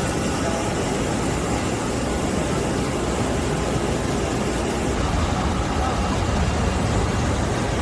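Steady airport apron noise of aircraft and ground vehicles running: a constant low rumble under a broad hiss.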